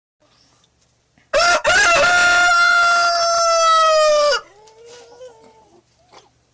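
Rooster crowing once: a couple of short notes run into a long held note of about three seconds that drops in pitch as it ends. A fainter, lower call follows just after.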